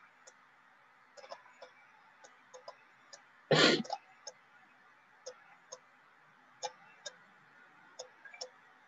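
Faint, irregular clicks from the pen input used to draw on a digital whiteboard, about a dozen over low hiss, with one louder short thump about three and a half seconds in.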